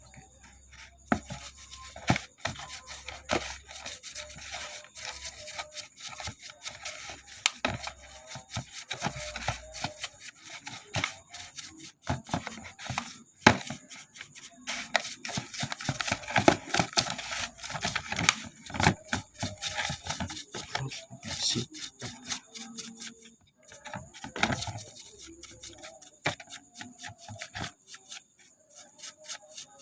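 Scrubbing and scraping at a dirty car hood latch mechanism: irregular rubbing strokes with sharp clicks and knocks of metal parts, a brief loud knock about halfway through.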